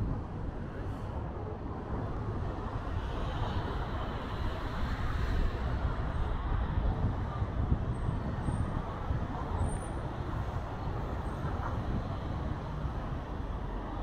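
City street ambience: road traffic running past in a steady rumble, with a few faint high squeaks past the middle.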